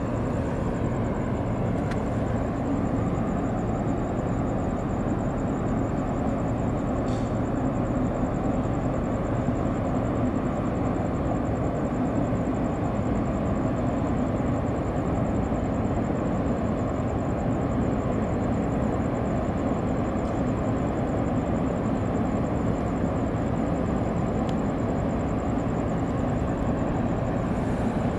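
Steady low rumble of a large container ship's engines and machinery as the ship passes close by, even and unbroken.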